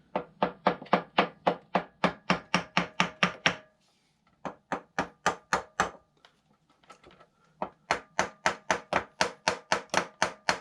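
Socket ratchet clicking in runs of evenly spaced metallic clicks, about five a second. It stops briefly twice: the sound of a nut or bolt being worked loose on a small motorcycle engine.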